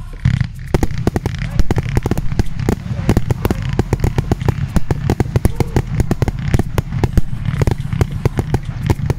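Firework battery going off: a dense run of sharp cracks and pops, many a second, over a steady low rumble.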